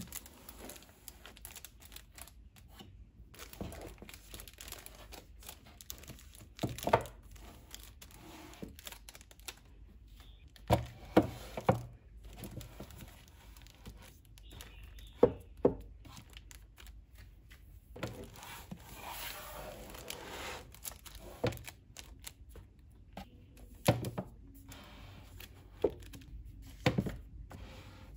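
Paperback manga volumes being handled on a shelf: irregular knocks as books are set down and pushed against the shelf and each other, with the rustle and scrape of covers sliding along the row, including a longer scraping stretch about two-thirds of the way through.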